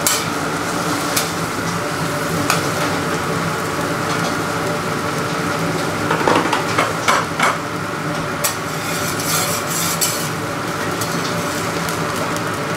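A metal spatula scraping and tapping on a hot dosa griddle (tawa) as batter and masala fry, with sizzling and a steady machine hum underneath. The scrapes come in a cluster about halfway through and again a little later.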